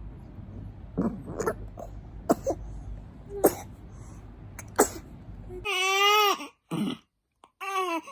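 A young baby burping in about five short bursts, then two brief, wavering cries near the end.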